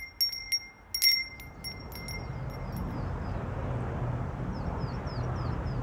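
A metal-tube wind chime jingles in the wind, with a few clear strikes in the first second and a half that ring out. From about two seconds in, steady wind noise rises, with a few faint high chirps near the end.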